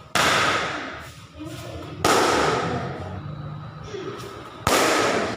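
Three loud, sudden hits about two seconds apart, each trailing off over about a second.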